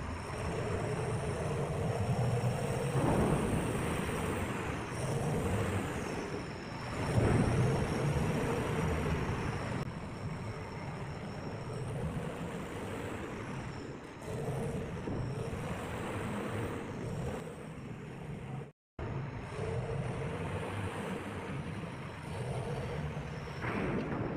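Steady heavy-machinery noise from sulphur discharge in a ship's cargo hold: a port crane lowering its clamshell grab, and a wheel loader's diesel engine running as it pushes sulphur toward the grab. A low rumble with a recurring hum, broken by a momentary drop-out about three quarters through.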